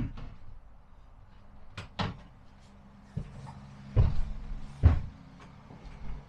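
Several separate knocks and bumps, the loudest about four and five seconds in, with a faint low hum underneath.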